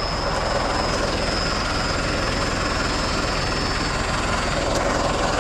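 Vehicle engine running steadily close by, a low rumble under a wash of noise, with a thin high whine that stops about four seconds in.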